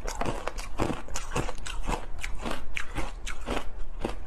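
Hard ice coated in matcha green tea powder being crunched and chewed in the mouth: an irregular run of sharp crunches, about three or four a second.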